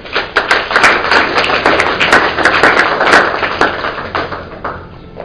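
Audience applauding: dense clapping from many hands that thins out and stops about four and a half seconds in.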